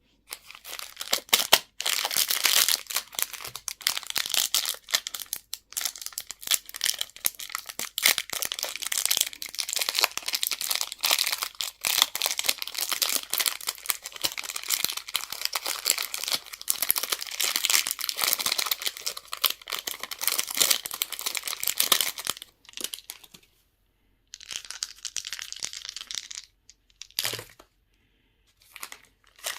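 Candy wrappers crinkling and tearing as they are unwrapped: dense, continuous crackling for most of the stretch, then, after a short pause, a few shorter bursts of crinkling and a single sharp click near the end.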